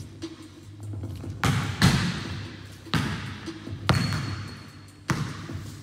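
Basketball bouncing on a gym floor: several heavy bounces about a second apart, each echoing in the large hall, the second one the loudest.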